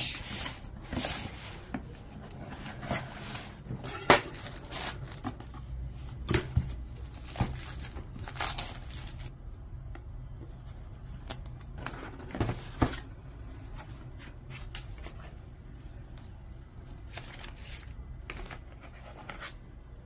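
Packaging being handled during the unboxing of a DJI OM 5 gimbal: rustling of the cardboard retail box and its plastic wrap, mixed with sharp taps and knocks as the box is handled and its lid lifted off. The rustling is busiest in the first half. A single sharp knock about four seconds in is the loudest sound.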